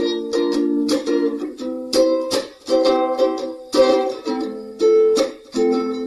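Instrumental music: a string instrument strummed in chords, with no singing.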